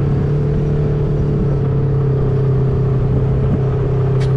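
A motor vehicle's engine running at a steady speed, an even hum that holds one pitch throughout.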